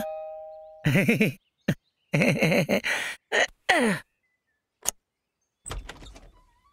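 A two-note doorbell chime dies away at the start, then a man groans and grunts as he heaves himself up and goes to the door. Sharp clicks of the door bolt and handle follow, and a low rustle near the end as the wooden door opens.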